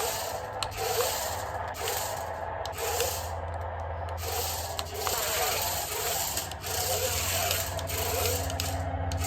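Toy remote-control stunt car running: small electric drive motors whirring while its wheels rub and scrape across a surface, in an uneven rhythm.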